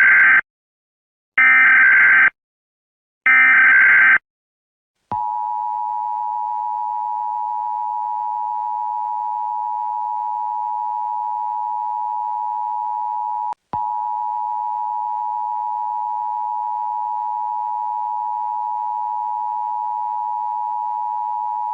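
Emergency Alert System tones: three buzzy SAME header data bursts of about a second each, then the steady two-tone EAS attention signal held for about sixteen seconds, with a momentary break roughly two-thirds of the way through. The sequence marks the start of a new emergency alert.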